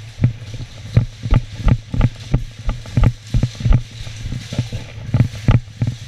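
Quick footsteps on a concrete floor, about three a second, each a heavy thump, over a steady low hum.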